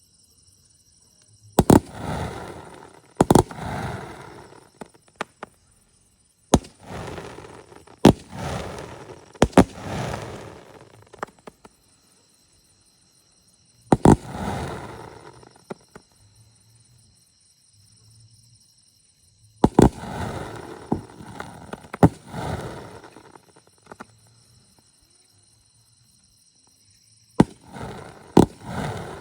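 Mr. Big Elephant Fireworks 'Pendulum Rider' aerial repeater cake firing its shots: sharp bangs in irregular clusters a few seconds apart. Each bang is followed by a crackling, hissing burst of a second or two.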